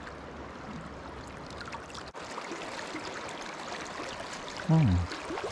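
River water flowing and rushing steadily. Near the end comes a short vocal sound from a person, falling in pitch.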